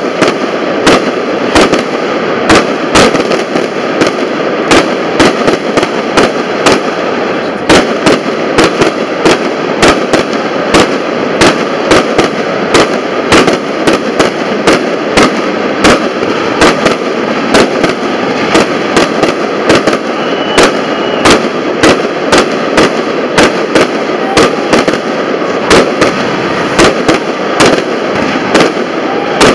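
Aerial fireworks shells bursting in a rapid, steady barrage of sharp bangs, about two a second, over a continuous noisy din.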